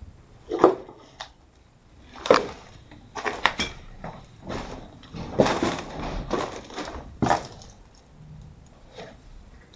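Footsteps crunching and scraping over rubbish and debris littering the floor: a run of irregular crunches, the loudest about half a second in, around two seconds in, and about five and seven seconds in.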